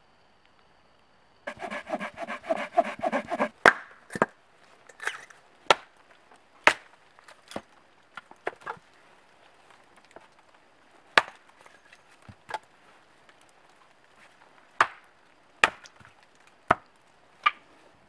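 Blade strikes splitting firewood into kindling on a wooden chopping stump: first a quick two-second run of rapid strokes, then about fifteen separate sharp knocks spaced irregularly.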